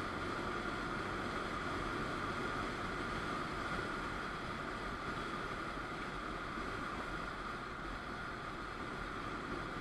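Steady rush of wind and road noise from a moving motorcycle, picked up by a camera riding on it, with a steady hum in the middle range.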